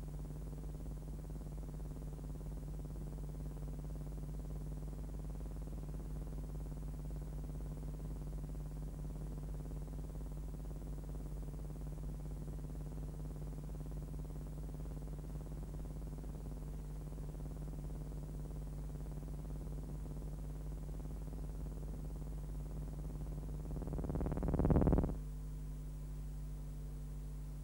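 Steady electrical mains hum, a low buzz with a stack of overtones, on an otherwise silent soundtrack. Near the end it swells into a louder, brighter buzz for about a second and then cuts off abruptly.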